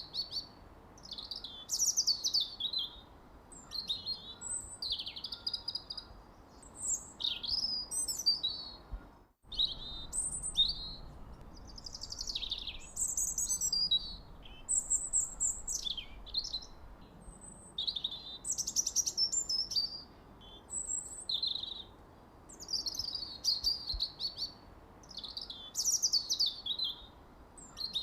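Songbirds chirping and singing in quick overlapping phrases, high sweeping notes one after another, over a faint low background hum. The sound drops out completely for a moment about nine seconds in.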